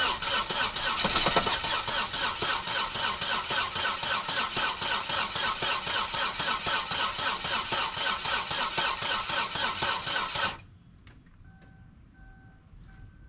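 Chevy Aveo four-cylinder engine, with water in place of its oil, cranked on the starter for about ten seconds in a steady rhythmic chug without catching, then the cranking stops abruptly. A faint, regular on-off beeping follows near the end.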